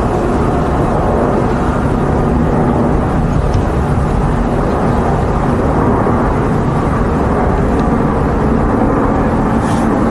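Steady low rumble of outdoor city background noise, even throughout, with no distinct events.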